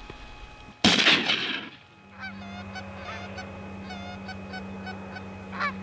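A sudden loud bang about a second in, then a flock of geese honking over and over as they fly in over the decoys.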